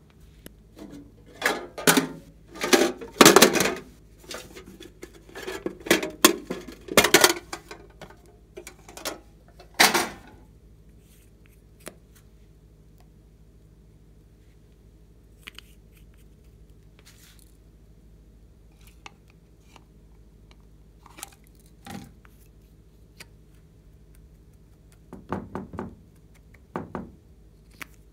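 Hand-handling noises of small plastic makeup items against a glass dish and tabletop: clicks, knocks and clatters, dense for the first ten seconds or so, then scattered single taps and a short run of clicks near the end.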